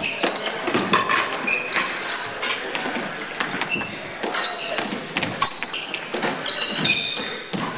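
Fencing footwork on a gym floor: sneakers squeaking and feet thumping as the fencers advance, retreat and lunge, with many sharp clicks and knocks throughout.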